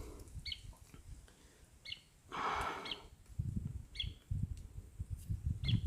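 A bird repeating a short high chirp about once a second, over a low rumbling noise, with a brief breathy rush about two and a half seconds in.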